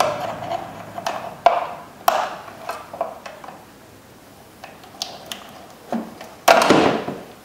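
Plastic clicks, taps and rubbing as a wire harness and its plastic retaining clip are worked through a plastic air filter housing, with a louder scraping rustle about six and a half seconds in.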